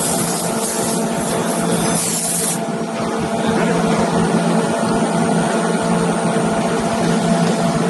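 Electric motor of a stainless-steel almond grinding mill running steadily with a constant hum. A high hiss over it drops away about two and a half seconds in.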